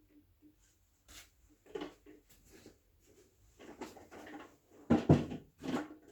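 Scattered knocks, bumps and scrapes of fireworks gear and packaging being handled and set down, getting busier in the second half, with the loudest thuds about five seconds in.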